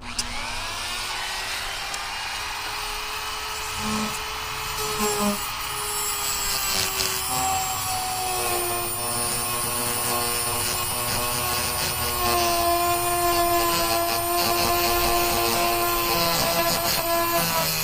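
Dremel rotary tool with a thin abrasive cutoff disc spinning up and cutting into a rusted screw head: a steady high whine over a grinding hiss, its pitch shifting lower partway through as the disc is pressed into the metal.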